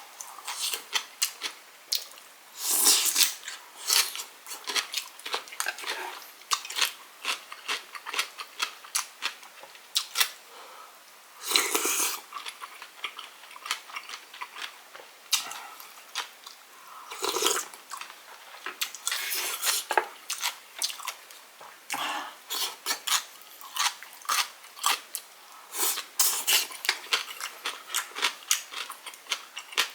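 Close-up eating sounds of tteokguk: steady wet chewing and mouth clicks, with a few louder, longer noisy bursts every several seconds.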